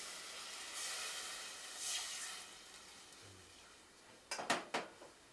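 Liquid pouring from a jug into an aluminium cooking pot on the stove, a hissing rush that fades out after about two and a half seconds. A few sharp knocks follow near the end.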